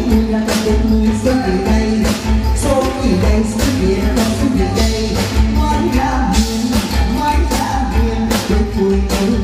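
A singer performing into a microphone over live band music with a steady drum beat and pulsing bass.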